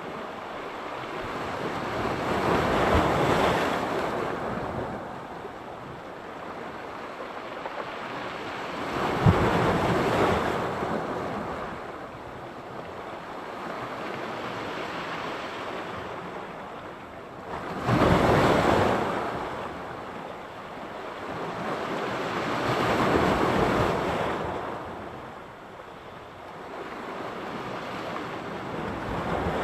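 Mediterranean sea surf: waves breaking on the shore about every five to eight seconds, each a rushing surge that swells and then fades. The loudest wave, a little past the middle, breaks with a sudden crash.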